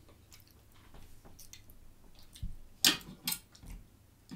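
Eating sounds: soft mouth clicks and chewing, then a few sharp clicks and knocks of a fork on a plate about three seconds in, the loudest event.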